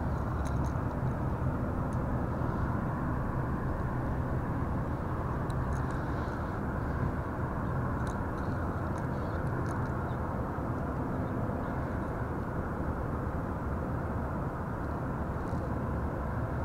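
Steady low outdoor rumble with a faint hum, like distant traffic, running unchanged throughout. A few faint, light clicks of a hard plastic topwater lure and its metal treble hooks being handled are heard over it.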